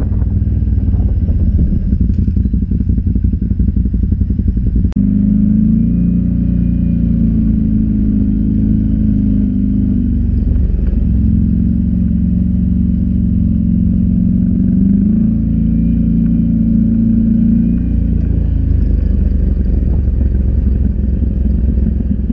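ATV engine running at a fairly steady throttle, a low drone with small rises and dips in pitch. For about the first five seconds it sounds rough and clattery, then the engine note steadies.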